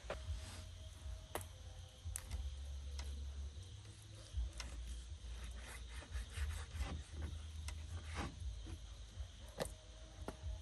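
Scattered light clicks and knocks with some rubbing, as of hands working with wood or tools, over a steady low rumble.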